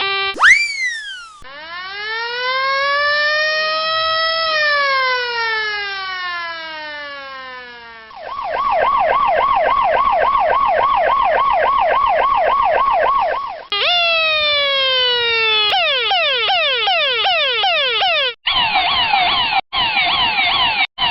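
A sequence of electronic siren tones changing mode. A brief rising-and-falling swoop is followed by a long, slow wail that rises and then falls. About eight seconds in it switches to a fast warbling yelp of about five cycles a second, then to quick repeated falling sweeps broken by short silent gaps near the end.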